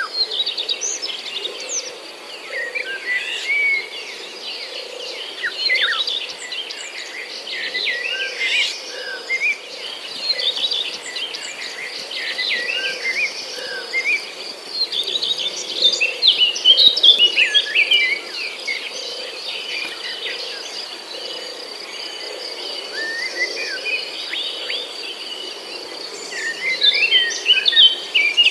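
Several forest birds chirping and calling in quick, overlapping phrases over a steady, high-pitched insect drone, with the calls thickest near the end.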